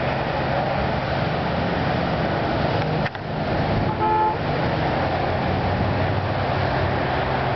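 Steady traffic noise with a low hum, and a short horn toot about four seconds in.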